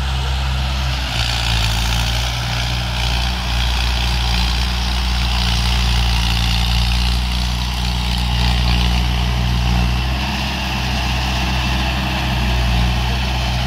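Mahindra Arjun 555 DI tractor's four-cylinder diesel engine running steadily while it drives a rotavator through the soil.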